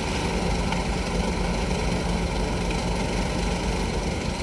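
An off-road vehicle's engine running steadily at an even pitch.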